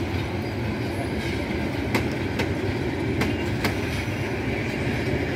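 Kortoya Express passenger coaches rolling past as the train pulls out of a station: a steady rumble with sharp clacks of wheels over rail joints every half second to a second.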